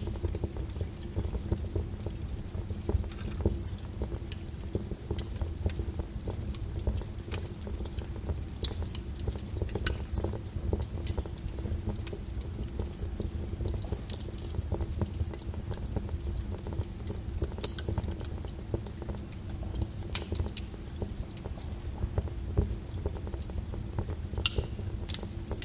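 Logs burning in a wood stove, crackling with irregular sharp pops and snaps over a steady low rumble of the flames.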